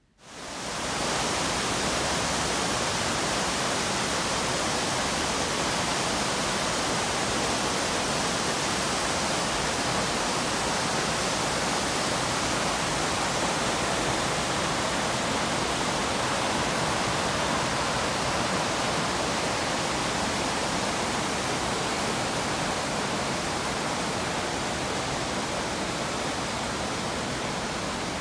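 The Lower Falls of Glen Nevis: falling water rushing steadily as an even, unbroken wash of noise, fading in over about the first second.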